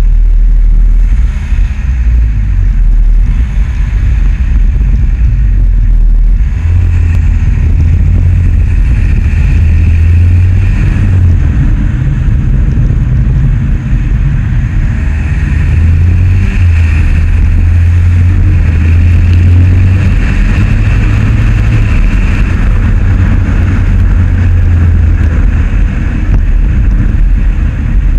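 Steady low rumble of road and wind noise picked up by a low-mounted camera on a moving vehicle driving in traffic.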